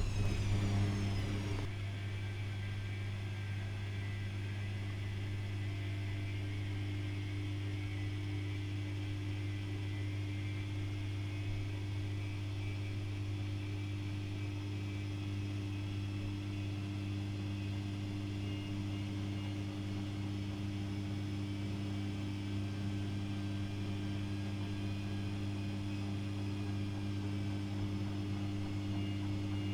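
Privileg Classic 30612 front-loading washing machine running with a steady low hum. A falling whine in the first couple of seconds dies away, and the hum carries on unchanged.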